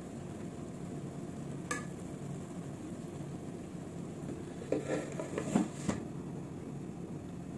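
Dishes knocking while biryani is served out: a serving platter and serving spoon against a steel cooking pot. One sharp click comes a little under two seconds in, then a cluster of knocks around five seconds in, the loudest near the middle of that cluster. A low steady hum runs underneath.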